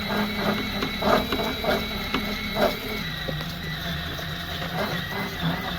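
A handheld power tool, most likely a drill, running steadily with a high whine as it works off stuck-on glue from the truck's body. Its running note drops slightly about three seconds in, and there are a few scraping knocks against the panel in the first half.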